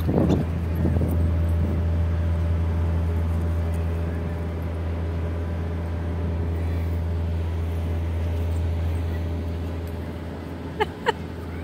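Steady low rumble of city traffic, with two short squeaks of a dog's squeaky toy near the end.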